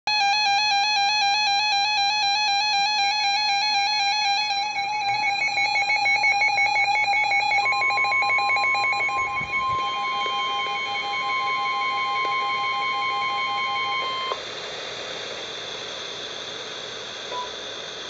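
Weather alert radio sounding an alert for a severe thunderstorm warning. A fast warbling alarm plays first; about seven and a half seconds in, the steady single-pitch National Weather Service warning tone joins it. Both cut off together about fourteen seconds in, leaving quiet radio hiss.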